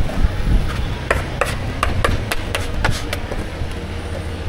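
Sharp knocks of a cooking utensil striking a hard surface, about eight in quick, uneven succession, over a steady low hum.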